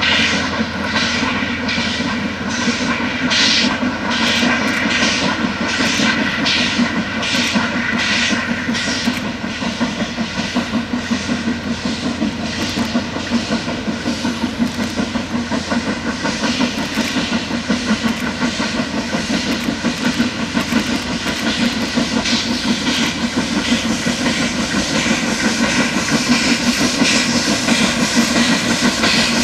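Steam locomotive working hard at the head of a heavy freight train, its exhaust beating about twice a second. After about ten seconds the beats come closer together and blur into a steady chuffing, growing louder as the engine approaches.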